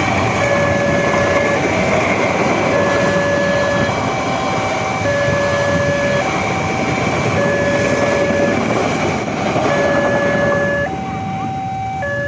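A level-crossing warning alarm sounds a two-tone signal, switching between a lower and a higher tone about every second. Under it is the loud rushing rumble of the KA Brantas passenger train passing over the crossing. The train noise falls away about eleven seconds in.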